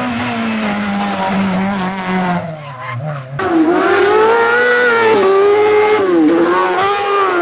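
Racing car engines: a Renault Clio rally car's engine drops steadily in revs as it slows for a bend. After a cut about three seconds in, a louder car-cross buggy's engine revs up and down through the corner.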